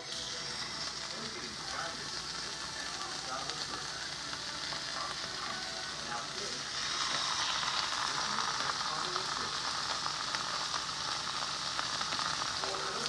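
Deer steaks sizzling steadily as they fry; the sizzle gets louder about seven seconds in.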